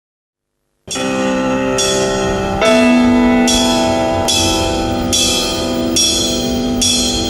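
Minimalist live ensemble music that starts abruptly about a second in: a struck, ringing note repeats at an even pulse a little faster than once a second over sustained chords.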